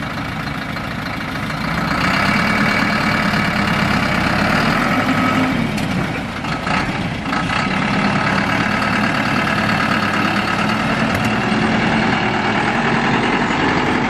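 Light dump truck's engine running while the truck dumps a load of soil. The engine steps up to a higher, louder speed about two seconds in and holds there, with a brief dip a few seconds later.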